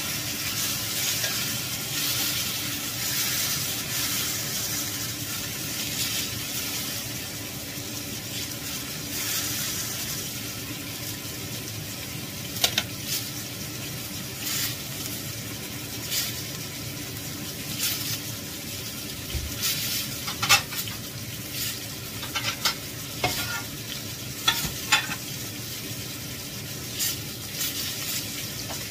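Wild boar meat frying in margarine and its juices in a cast-iron skillet: a steady sizzle that eases a little early on, with sharp spits and pops coming through from about halfway.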